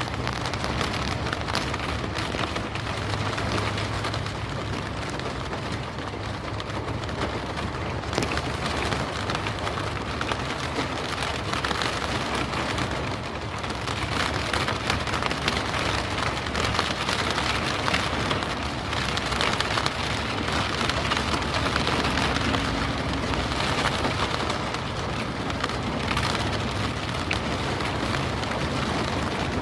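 Steady rain falling on a surface: an even hiss of rainfall dense with small drop impacts.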